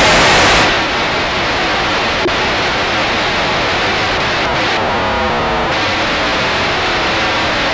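Experimental electronic noise music: a dense, distorted noise texture generated on synthesizer, effects pedal and music computer. Its hissing top end falls away under a second in, and criss-crossing rising and falling tones sweep through it around five seconds in.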